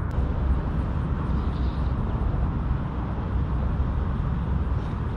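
Steady low rumbling noise with a fainter hiss above it, with no distinct events.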